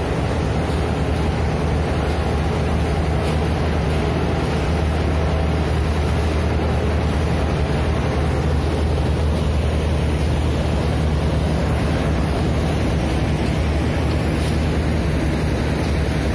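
Cement plant machinery running with a loud, steady drone: a deep hum under an even rush of noise that does not change.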